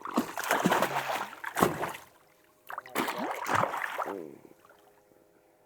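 Water splashing and sloshing in two bursts, the second starting about three seconds in, as a fish is let go and kicks off into the water.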